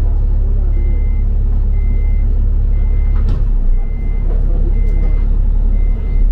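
Steady low rumble of a double-decker bus with a high electronic warning tone beeping six times, about once a second, each beep about half a second long.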